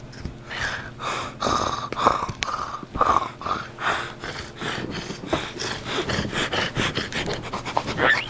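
A baby's breathy grunts and gasps right at the microphone, mixed with the rustle of bedding and many small clicks from handling the camera.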